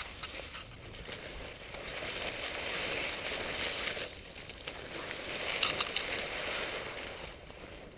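Footsteps through dry grass and young pine branches brushing against the walker: a rustling, crackling swish that swells twice.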